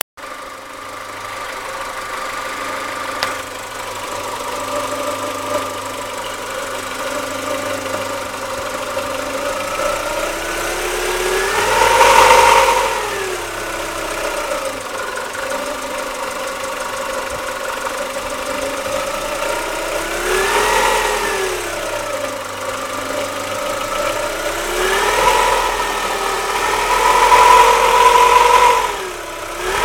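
Chevrolet Lacetti's 1.6-litre four-cylinder engine idling and revved up and back down about four times, the biggest rev about twelve seconds in; it is recorded for noises and knocks that the owner hears from the engine.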